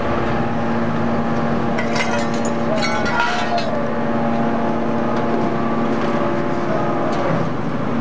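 Y81F-3150 hydraulic scrap metal baler running with a steady machine hum, while its heavy lid moves. From about two to three and a half seconds in comes a burst of crackling and crunching from the scrap metal.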